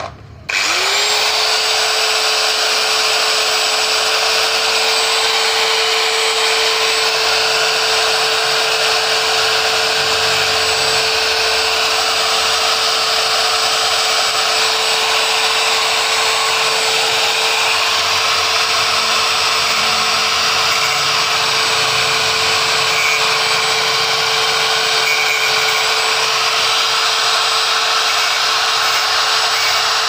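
Electric angle grinder switching on about half a second in: its whine rises quickly, then holds at a steady speed with a loud, even grinding hiss.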